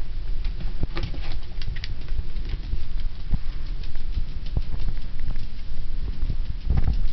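Yorkshire terrier puppy's paws and claws pattering on a vinyl floor as it trots about carrying a rubber flip-flop: scattered light ticks over a steady low rumble.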